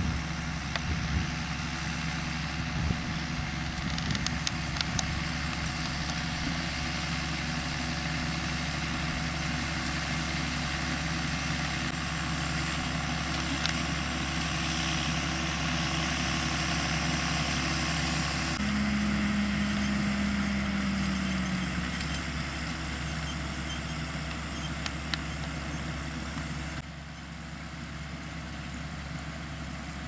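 John Deere 6920S tractor's six-cylinder diesel engine running steadily under load while pulling front and rear ploughs. About two-thirds of the way through a higher note comes in and slowly falls away, and the sound gets quieter near the end.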